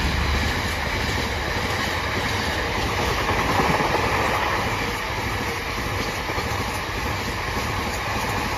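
Cement freight train's wagons rolling past behind a Class 66 diesel locomotive: a steady rumble of wheels on the rails with some clickety-clack. It is a little louder at the very start as the locomotive draws away.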